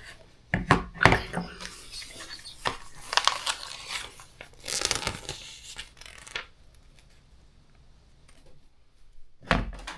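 Rustling and clicking from hands handling plastic toy pieces, in irregular short bursts: about half a second in, around three and five seconds, and again near the end.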